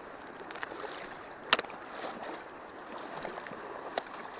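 Stream water running steadily, with one sharp click about a second and a half in and a fainter click near the end.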